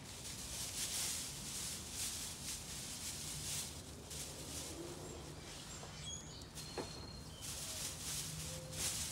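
Outdoor background noise with a few short bird chirps, over repeated soft surges of high hiss and a low steady hum.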